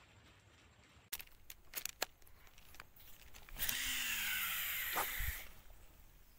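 A few clicks of a baitcasting reel being handled, then a cast: the spool whirs for nearly two seconds as line pays out, falling in pitch as the spool slows, and stops with a thud and a click.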